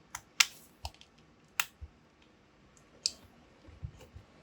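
Sharp, irregular metal clicks of a screwdriver bit working at a shallow screw in a water cooler's pump housing, about seven in all, the loudest about half a second in; the bit is struggling to grip the shallow screw head.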